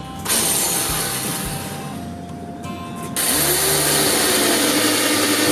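Power drill running under load, boring through material; its motor note rises and then holds steady a little after three seconds in, as the drilling gets louder. Background music plays underneath.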